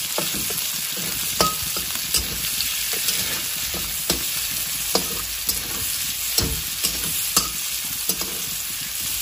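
Sliced onions sizzling in hot oil in a steel karahi, stirred with a flat metal spatula that scrapes and clinks against the pan at irregular intervals.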